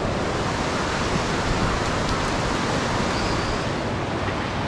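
Steady outdoor rushing noise, even across high and low pitches and level throughout, with no distinct events.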